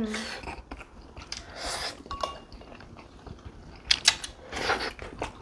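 Close-miked eating sounds: chewing and wet mouth noises, with a few light clicks of chopsticks against the plate.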